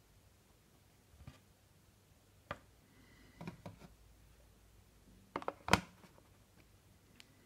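A few light plastic clicks and taps as a hard plastic holder is handled on a wooden table, then a quick cluster of louder clacks late on as a Sony MiniDisc player is set down into the holder.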